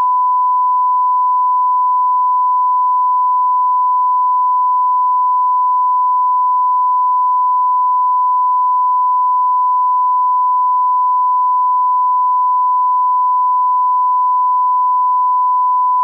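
A continuous electronic test tone: one pure, steady beep held unbroken at a constant pitch and loud level.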